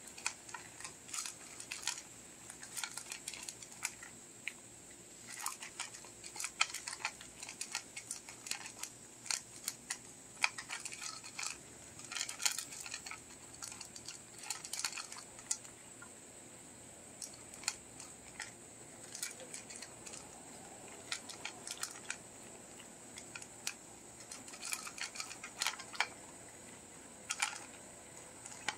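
Shetland sheepdog puppy eating dry kibble from a bowl: irregular crunching and clicks of kibble and muzzle against the bowl, in bursts with short pauses between mouthfuls.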